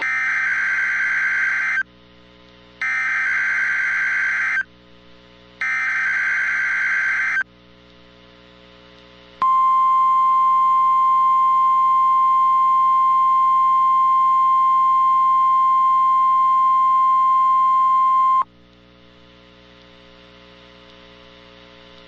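NOAA Weather Radio Required Weekly Test tones: three SAME header data bursts, each just under two seconds long and about a second apart, then the steady 1050 Hz warning alarm tone for about nine seconds. A faint receiver hiss and hum sits between them.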